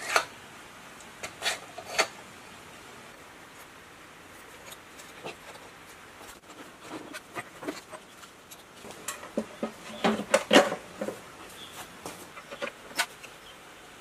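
Hands fitting metal parts onto a small petrol engine: scattered clicks and light knocks of metal on metal, with a quick cluster of them about ten seconds in.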